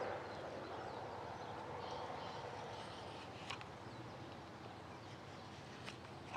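Morakniv 106 sloyd knife paring small cuts in alder wood: a soft scraping and shaving, with two sharp clicks of the blade about three and a half and six seconds in.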